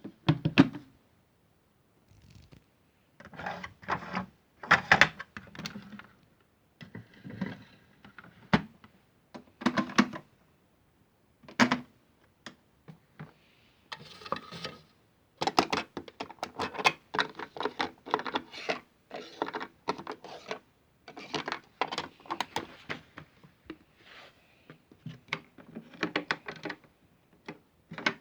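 Modified toy washing machine in an unbalanced spin, its drum knocking and rattling against the casing in irregular bursts of clatter.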